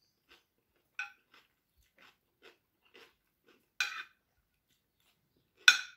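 Close-miked chewing, about two chews a second, with a fork and spoon clinking against a ceramic plate three times, the last clink near the end the loudest.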